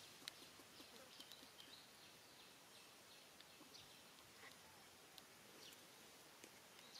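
Near silence: faint outdoor ambience with many faint, short, high chirps and a few small clicks.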